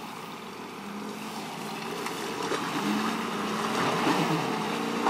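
Pickup truck engines running and building revs as one truck tows the stuck Ford pickup out of deep mud on a strap, growing steadily louder.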